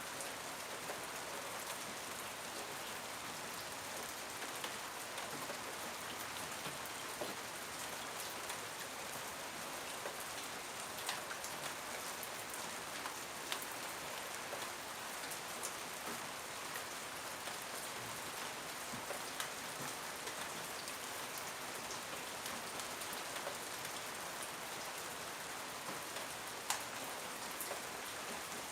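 Steady rain falling, an even hiss with scattered sharp drops striking a surface close by.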